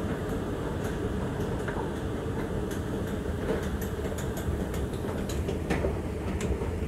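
Steady low rumble and hum of an underground metro station, with scattered light clicks.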